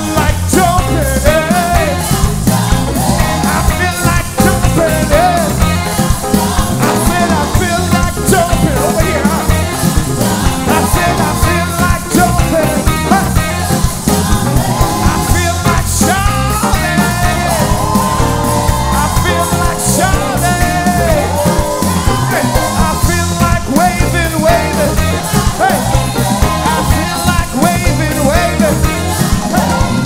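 Live gospel praise band playing an upbeat song, with drums, bass guitar and keyboards under singers leading the lines "I feel like dancing" and "I feel like jumping".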